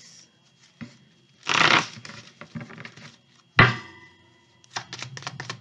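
A deck of cards being shuffled and handled: a brief rustle of cards, one sharp knock as the deck or a card is tapped down, then a few light clicks of cards.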